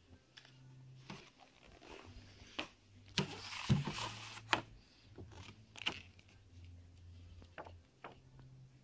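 Paper rustling and sliding as booklets and brochures are handled and their pages flipped, with scattered light taps; the loudest rustle comes a little past three seconds in.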